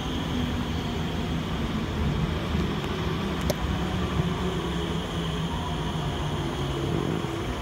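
R151 metro train running along the station platform: a steady low rumble.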